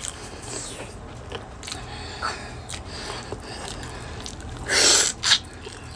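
Close-up eating sounds: chewing and small mouth and shell clicks while boiled shrimp is peeled by hand, with one short, loud noisy burst about five seconds in.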